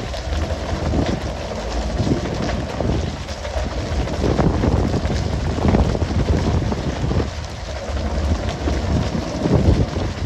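Fishing boat at sea: a steady rush of water spray and splashing with wind on the microphone over the low rumble of the boat, broken by irregular knocks as skipjack tuna are swung aboard onto the deck.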